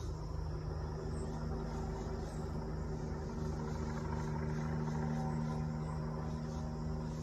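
Helicopter running steadily: a constant engine hum over an even, low rotor beat.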